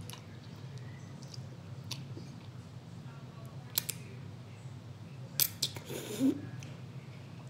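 Noodles being eaten with a plastic fork from a plastic bowl: scattered sharp clicks and smacks, loudest in a cluster about five and a half seconds in, then a short slurp, over a steady low hum.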